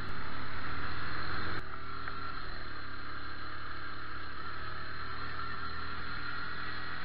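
Motorcycle engine running steadily under way, mixed with wind and road noise on the camera's own microphone. It is louder for the first second and a half, then drops suddenly.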